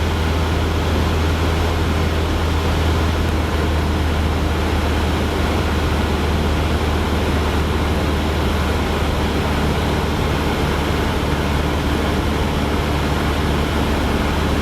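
Cessna 172's piston engine and propeller droning steadily in cruise descent, a constant deep hum under a wide cabin-noise hiss, heard from inside the cockpit.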